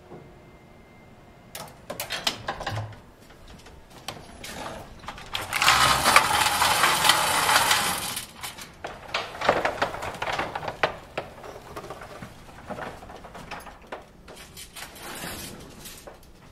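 Clanks and metallic rattling from an old freight elevator's collapsible steel scissor gate being worked. A long continuous rattle runs from about five and a half to eight seconds in as the gate is slid, with scattered clatters before and after.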